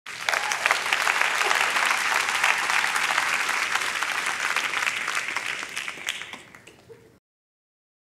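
Audience applause, many people clapping at once, dying away about six to seven seconds in.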